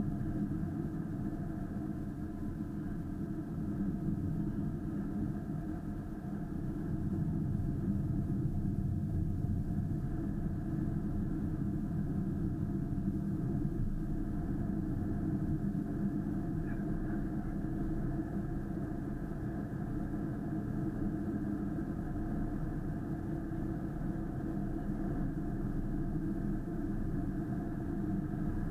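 Steady engine and tyre noise of a moving car, heard from inside its cabin, swelling slightly about seven seconds in.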